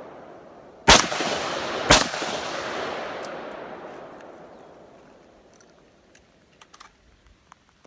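Two shots from a Diamondback AR-15 in .223, about a second apart, each followed by a long echo that fades over several seconds. The echo of an earlier shot is still dying away at the start, and a few faint clicks come near the end.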